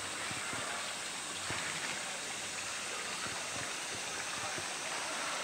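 Steady rush of water pouring and splashing into a pool, with small sloshing ticks of water moving around a swimming polar bear.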